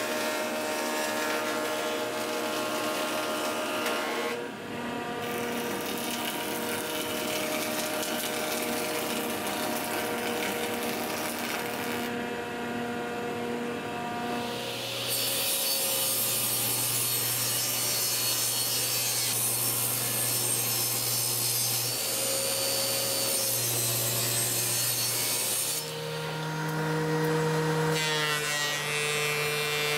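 Homemade jointer running and cutting rough hardwood boards pass after pass: a steady motor whine under the rasp of the wood on the cutter, with short lulls between passes. A few seconds before the end the sound changes to a DeWalt benchtop thickness planer planing a board.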